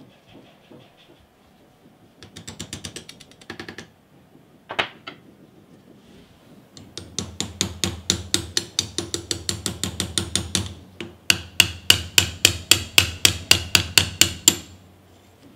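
A hammer tapping a pin punch to drive a pin out of a rusty pipe cutter's slider block: two long runs of quick metal-on-metal taps with a short break between, the second run louder and a little slower.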